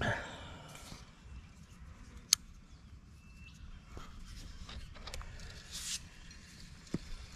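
A spinning rod and reel handled close by: a sharp click about two seconds in, then a brief high hiss a little before the end as the rod is swung up, with a few light knocks.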